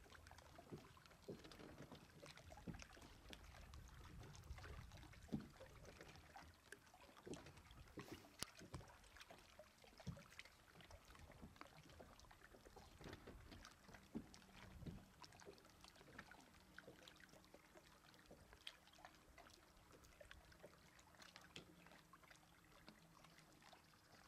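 Near silence aboard a small fishing boat: faint scattered clicks and light knocks with a little water lapping. A faint steady low hum comes in about halfway through.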